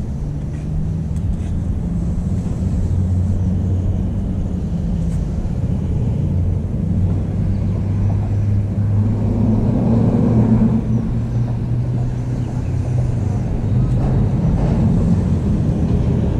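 A vehicle engine running steadily: a low rumble with a steady hum that swells a little around the middle.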